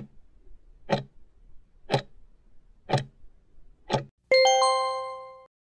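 Countdown timer sound effect: a clock ticks once a second, five ticks, then a bell chime of several tones rings out just after four seconds and fades, signalling that time is up.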